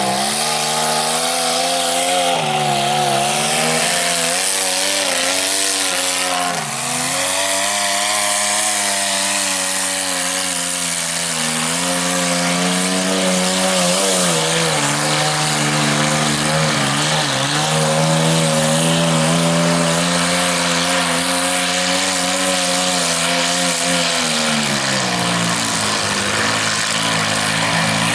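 Mud truck engine revving hard through a mud bog, the revs dropping and climbing again several times as the tires spin and grab in the mud.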